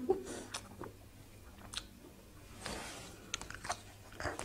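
Faint close-up eating sounds: chewing of spicy raw salmon salad with crisp shredded vegetables, with scattered small wet clicks and light crunches.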